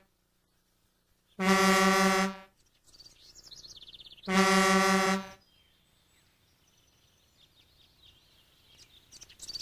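A truck horn honking twice, each blast about a second long with a fast pulsing buzz, about three seconds apart. Faint bird chirps come between and after the blasts.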